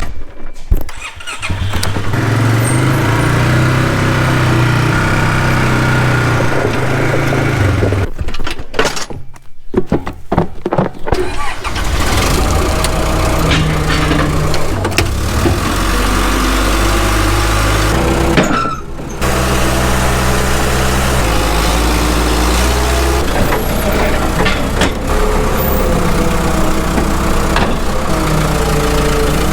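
An engine running steadily, its pitch stepping up and down several times, with a break of about three seconds around eight seconds in and a short dropout around eighteen seconds in.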